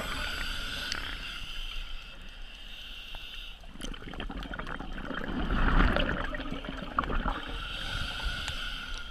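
Scuba breathing through a regulator underwater: a steady hissing inhalation, then exhaled bubbles bubbling and gurgling out from about four to seven seconds in, then another hissing inhalation near the end.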